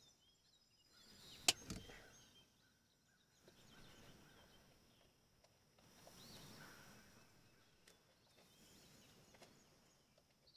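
Near silence: faint scraping and handling of a screwdriver backing a slotted plug screw out of a personal watercraft's exhaust, with one sharp click about a second and a half in. Faint bird chirps in the background.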